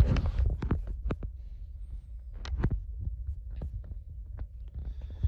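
A steady low rumble with scattered short clicks and knocks, the loudest right at the start.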